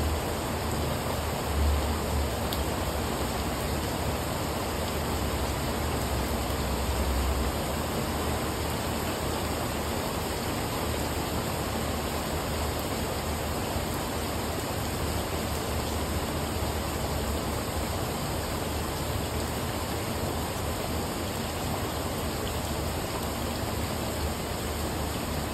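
Rain falling steadily on a wet brick patio and garden plants, an even hiss throughout, with some low rumbling in the first several seconds.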